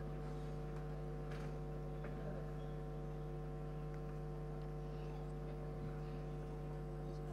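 Steady electrical mains hum with a stack of tones, with a few faint light clicks from metal tongs handling food in plastic tubs.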